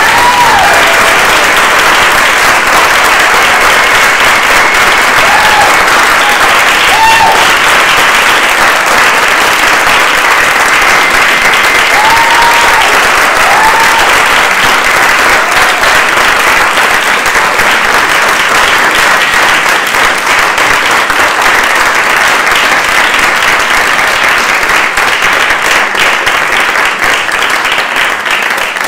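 Audience applauding steadily after a performance, the clapping thinning out over the last few seconds.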